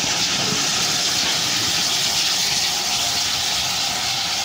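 Steam locomotive hissing: a loud, steady rush of escaping steam with no chuffing beat.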